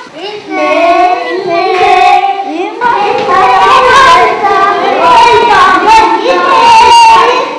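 Children's high voices singing together in a sing-song tune, with long held notes.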